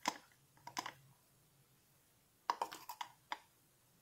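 Light clicks and taps of a steel spoon against a baking powder tin as the powder is scooped out and tipped into flour. One click comes at the start and another under a second in, then a quick cluster about two and a half to three and a half seconds in.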